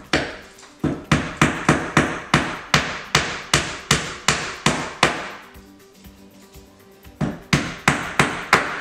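Hammer nailing two stacked countertop panels together, quick strikes at about three a second. The strikes pause for about two seconds, then a second run starts near the end.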